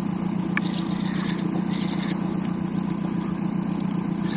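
Boat motor running steadily at slow trolling speed, with a few faint short clicks about half a second in.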